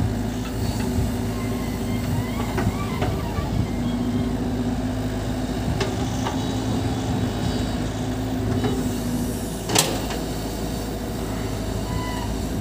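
Cat 313 crawler excavator's diesel engine and hydraulics running steadily through a dig, swing and dump of a bucket of sand into a dump truck, the hum growing stronger from about four to nine seconds in. A sharp knock sounds near the end.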